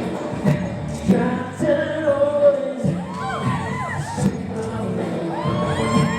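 Music with an audience cheering and screaming over it. From about three seconds in, and again near the end, many high-pitched screams rise and fall over one another.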